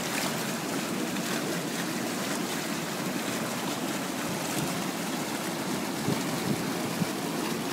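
Fast river rapids rushing over rocks, a steady whitewater rush close by.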